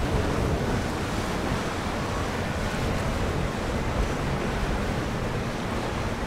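Steady rush of wind buffeting the microphone, mixed with water washing along the hull of a passing motor yacht.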